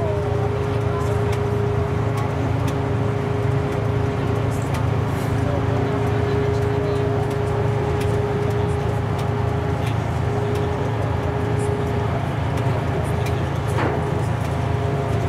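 MT-55A tank bridge layer's V12 diesel engine running steadily while its scissor bridge is folded up, a low drone with a steady whine above it that fades out near the end.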